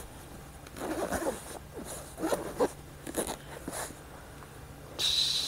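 Zipper of a GoPro hard carrying case being pulled open: a few short rasps, then a longer, louder run near the end.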